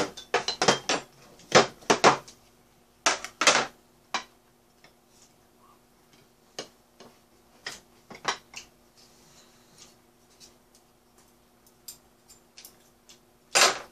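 Chopsticks and a spoon clicking and clinking against bowls and dishes during a meal: a quick run of clinks at first, a few more about three seconds in, then scattered single clicks. A faint steady hum runs underneath.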